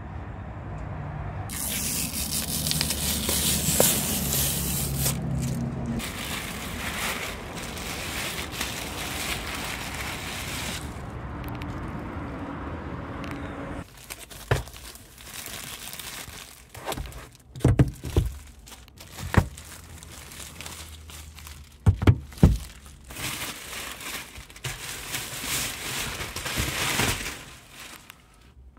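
Protective plastic film being peeled off a brand-new car's trim and crinkled in the hand, in long stretches of tearing and rustling. Between them come a handful of sharp knocks and taps as interior parts are handled.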